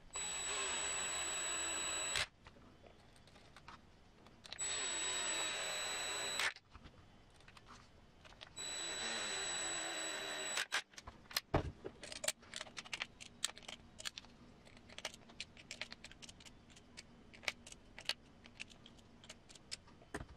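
DeWalt 12V cordless screwdriver driving screws into a plastic RC transmission housing: three runs of about two seconds each, the motor's pitch sinking a little through each run, ending in a sharp click. Then a low thump and irregular light clicks of plastic parts being handled.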